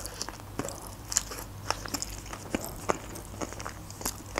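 A person chewing a mouthful of sushi roll close to the microphone: irregular sharp clicks and small crunches of the mouth and food, with no words.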